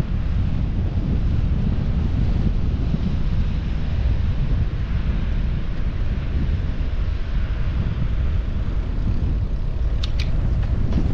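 Wind buffeting an action camera's microphone on a moving bicycle: a loud, steady low rumble. A few short, sharp clicks come about ten seconds in.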